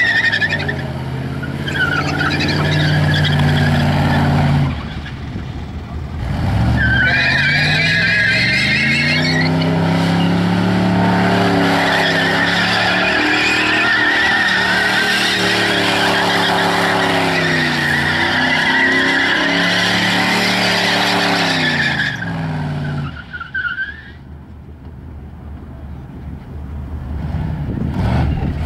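Holden VS Commodore V8 doing a burnout: engine held at high revs, rising and falling with the throttle, while the spinning rear tyres squeal. It eases off briefly about five seconds in, goes back on for a long stretch, then drops away near the end to a quieter run.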